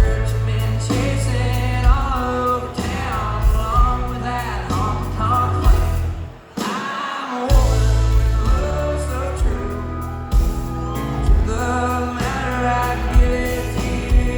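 Country song with a male voice singing over a band's bass and drums; the music drops out briefly about six seconds in, then comes back.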